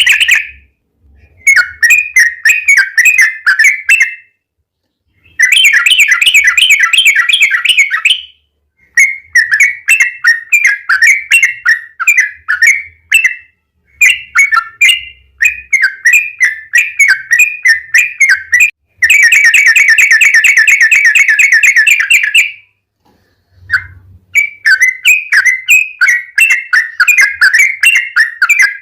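Yellow-vented bulbul (trucukan) singing in long rapid 'ropel' runs of bubbling, chattering notes. Several runs of a few seconds each are broken by short pauses, and two of them, near the start and about two-thirds through, are dense unbroken trills.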